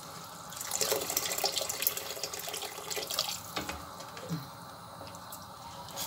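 Wooden spoon stirring rice in a stainless steel pot of hot water, the water swishing and sloshing, with a few light knocks of the spoon on the pot; the stirring eases off in the second half.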